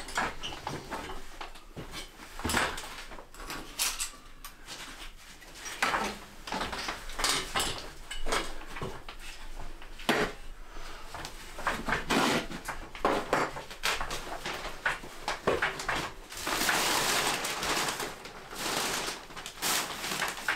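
Irregular knocks and clatter, with a stretch of dense scraping or rushing noise about sixteen seconds in.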